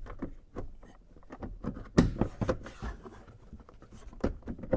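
Scattered knocks and clicks of a plastic interior door trim panel being handled against the door while its retaining pins are lined up, with two louder knocks about two seconds in and near the end.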